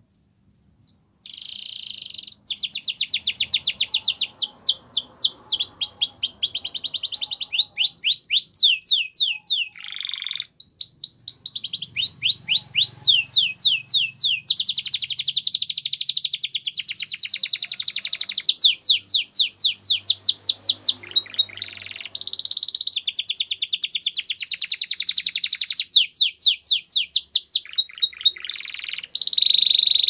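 Domestic canary singing a long song of fast repeated trilled notes, one rapid roll after another at changing pitches, with brief breaks about ten and twenty-two seconds in.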